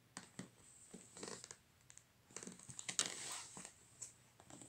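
A stiff LP-sized card sleeve being handled and turned over: card rustling and scraping against fingers, with small clicks and taps. The loudest scrape comes about three seconds in.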